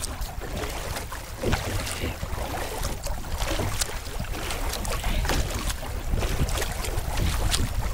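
Wind buffeting the microphone with a steady low rumble, over the splashes and drips of a double-bladed kayak paddle dipping into the water in short, scattered ticks.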